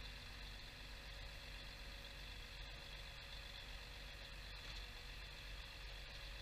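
DAF eight-wheel grab lorry's engine running steadily as a faint low hum with a thin steady whine over it, while the loader crane swings the empty grab out.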